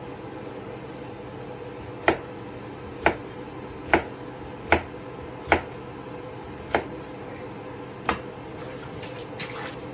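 Kitchen knife dicing potato on a plastic cutting board: seven sharp knocks of the blade striking the board, roughly one a second, then a few lighter clicks near the end, over a steady low hum.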